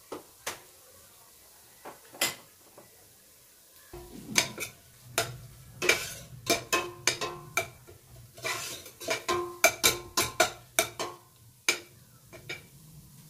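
Black plastic spatula scraping and knocking against a stainless steel pot while stirring onions, green chillies and turmeric, in quick irregular strokes from about four seconds in, with a few single taps before that.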